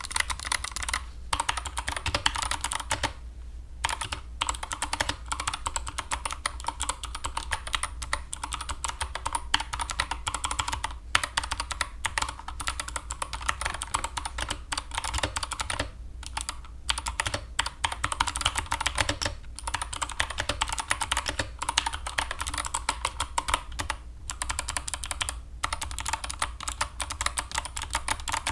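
Typing on a Drop CTRL mechanical keyboard fitted with Kailh Box White clicky switches: a fast, continuous clatter of keystrokes, with a couple of brief pauses.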